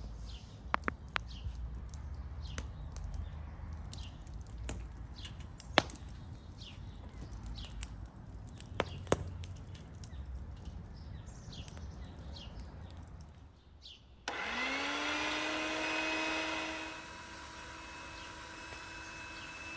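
Sharp clicks and knocks as whole chickens are hung on the spokes of a bicycle-wheel rotisserie, with birds chirping. About 14 seconds in, a small electric motor switches on: its hum rises in pitch and settles into a steady whine, louder for the first few seconds.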